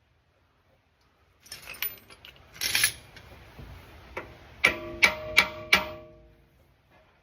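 Metal hand tools clinking and scraping during work on a differential pinion flange, then four quick, sharp metal-on-metal strikes about a third of a second apart, each leaving a ringing tone.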